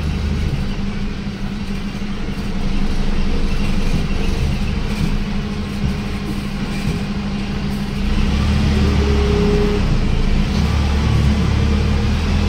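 A bus's diesel engine running, heard from inside the driver's cabin as the bus moves, with a steady low hum. It grows louder about two seconds in and again about eight seconds in.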